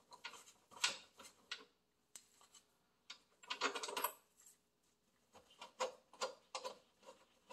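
Faint clicks and light scrapes of a Torx T25 driver turning out already-loosened screws, in short clusters about a second in, around three and a half to four seconds in, and several more toward the end.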